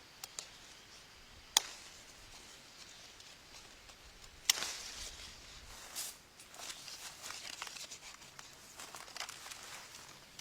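Two sharp snaps about three seconds apart, the second followed by a long run of rustling and crackling.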